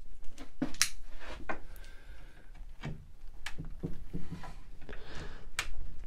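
Scattered clicks and knocks from hands handling a wooden chair on a workbench, with some brief rubbing between them.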